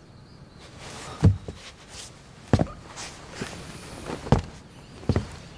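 Footsteps of a person in boots walking across a wooden floor: four heavier steps at uneven spacing, with a few lighter ones between.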